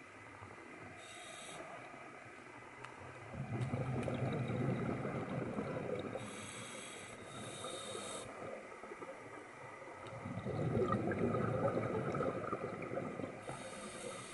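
Scuba diver breathing underwater through a regulator: a short hiss as each breath is drawn, then a rush of exhaled bubbles lasting about three seconds. Two full breaths.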